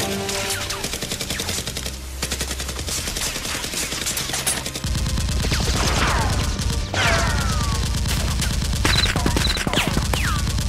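Rapid, continuous gunfire sound effects, dense volleys of shots like an automatic-weapons firefight, laid over a toy Nerf blaster fight. A low pulsing layer comes in about five seconds in, and short falling whizzes cut through the shots now and then.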